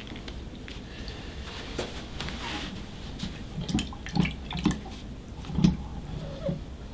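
Wet pickles being pulled from a glass jar of brine and set down on paper: soft wet taps and drips, with a few short knocks in the second half.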